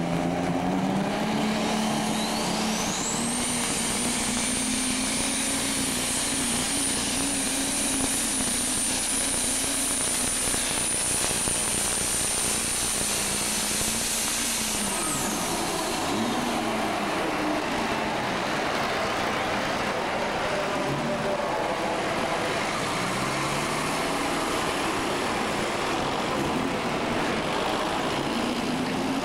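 Turbocharged diesel super stock pulling tractor launching and running under full load, with a high turbo whistle that rises in the first few seconds, holds, and falls away about halfway through as the pull ends. The engine then drops to lower, uneven revs.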